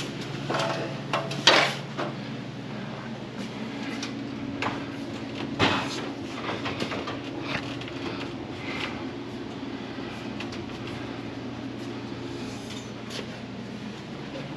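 Rolling steel scaffold being pushed along on its casters: a steady rumble with sharp metal clanks and knocks, the loudest about a second and a half in.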